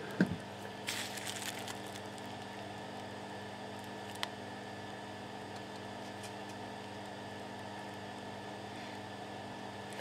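Steady electrical mains hum, with a few faint scratchy ticks about a second in and one sharp tick about four seconds in, as steel tweezers work solder paste onto tiny PCB pads.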